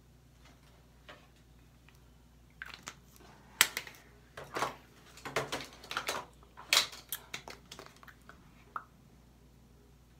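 Handling noise: an irregular run of clicks, clacks and rustles of small plastic makeup items being moved about, with the loudest sharp clacks about three and a half and seven seconds in.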